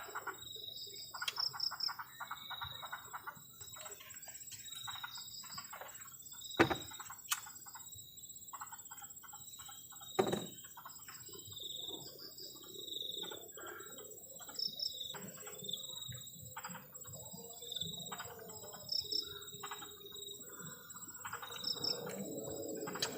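Night chorus of crickets and other insects: a steady high trill with short paired chirps repeating above it, and frogs trilling near the start. Two sharp knocks stand out, about six and a half and ten seconds in.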